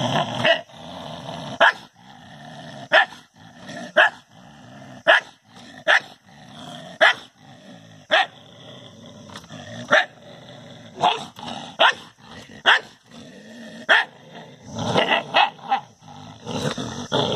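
A dog barking: single sharp barks about once a second, then a quick run of several barks near the end.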